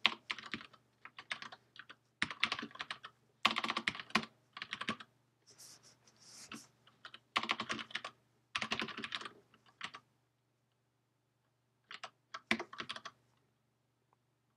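Typing on a computer keyboard: quick bursts of key clicks with short pauses between them, stopping near the end.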